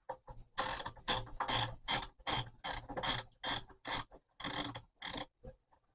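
A ratchet clicking through quick strokes, about four clicks a second, as a nut and bolt are tightened on a plastic dust separator.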